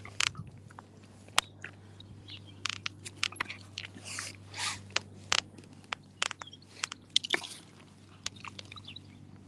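Dog chewing and tearing at grass: irregular crunches and sharp clicks at an uneven pace.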